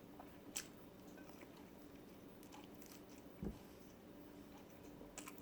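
Mostly quiet, with soft chewing and a few faint clicks of someone eating a meal of pork stew.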